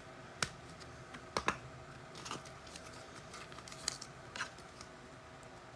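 Trading cards being handled and flicked through, making faint, scattered clicks and slides of card against card.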